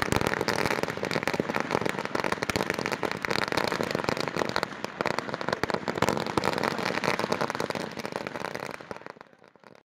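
A long string of firecrackers going off in a rapid, continuous crackle of bangs, which thins out and dies away near the end.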